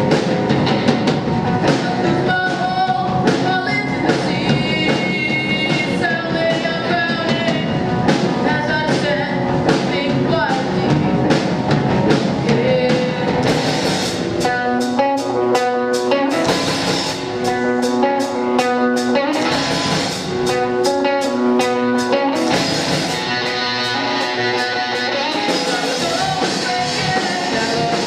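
Live rock band playing: electric guitar and drum kit, with singing. About halfway through, the drums settle into a steady, even beat under sustained guitar chords.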